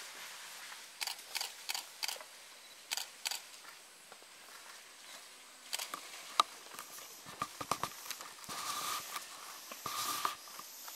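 Camera shutter firing repeatedly: quick runs of sharp clicks in the first few seconds, and again after about six seconds.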